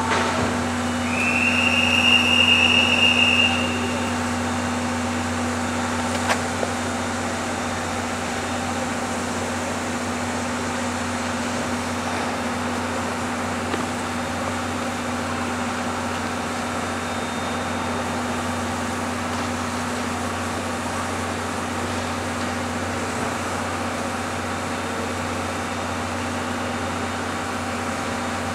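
A shrill whistle sounds once for about three seconds near the start, rising slightly in pitch as it opens. After it comes a steady mechanical drone and hiss from the standing steam locomotive, with one sharp click a few seconds later.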